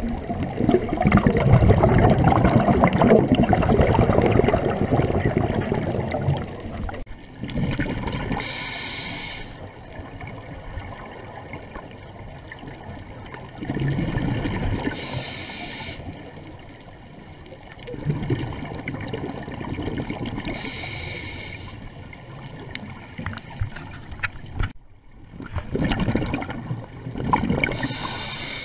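Scuba diver breathing underwater through a regulator: a short hiss on each inhale, followed by a longer burble of exhaled bubbles, about every six seconds. The first exhale is the longest and loudest.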